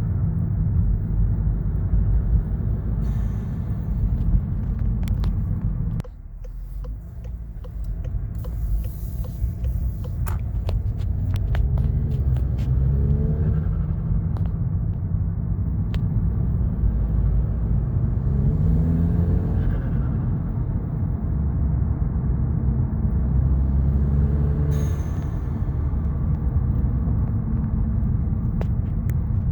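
Volkswagen Golf R's turbocharged four-cylinder under way, a steady low engine and road rumble with its pitch rising in places as it revs. Brief hissy bursts come a few times, which fits the turbo flutter at low boost that the owner blames on an APR stage 2 tune.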